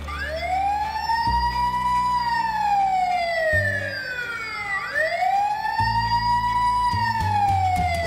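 Battery-powered toy police car's electronic siren wailing: the tone rises, then slowly falls, and this happens twice, each sweep lasting about four and a half seconds.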